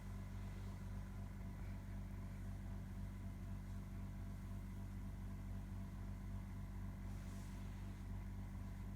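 Steady low electrical or appliance hum: room tone.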